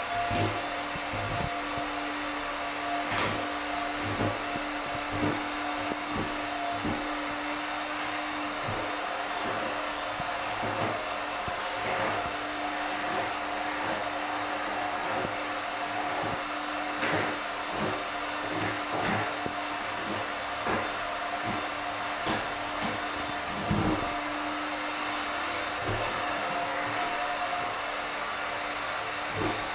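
A small electric motor running steadily with an airy hiss and a constant hum, with frequent light knocks and taps throughout.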